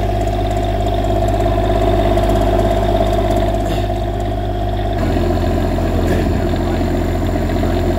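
Onan 8000-watt Quiet Diesel RV generator running steadily on a bench test after its rebuild, a pretty quiet, even hum. The tone of the hum shifts slightly about five seconds in.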